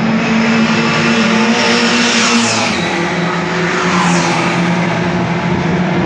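Historic race cars running hard on a street circuit: engines at high revs, with two cars passing close, each a quick fall in pitch, about two and four seconds in, over the steady drone of others approaching.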